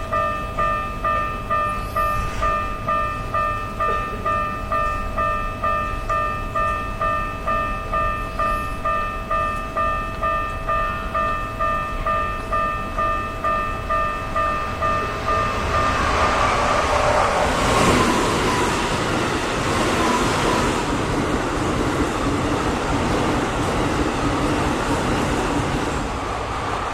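Japanese railway level-crossing alarm ringing its electronic bell, a two-tone ding about twice a second. About sixteen seconds in, a train passes over the crossing, and its rumble and rail noise drown out the bell, loudest a couple of seconds later.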